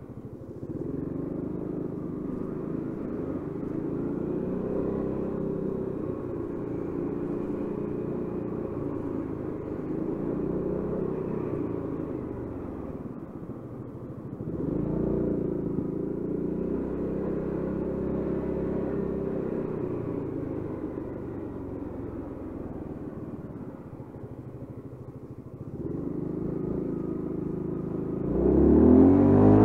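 Honda Forza 350 scooter's single-cylinder engine running under way, its pitch rising and falling through several throttle swells and easings, with a sharp rev rising near the end.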